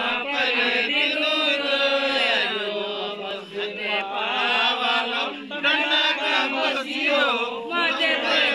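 Several men chanting a Santali Sohrai song together, their voices overlapping.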